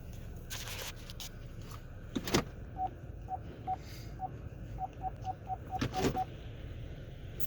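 Keypad of a car wash pay station beeping as keys are pressed: about eleven short beeps at one pitch over some three seconds, unevenly spaced and quicker toward the end. A few knocks and a steady low rumble run underneath.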